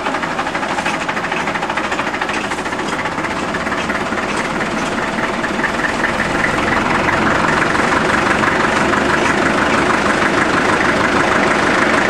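Gas-start diesel engine of an antique sawmill running steadily with a fast, even firing rhythm, getting louder about halfway through.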